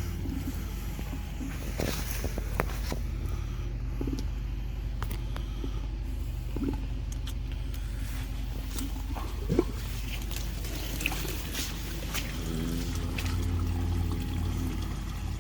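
Hydro jetter's engine running at a steady drone, with a few scattered clicks and knocks over it.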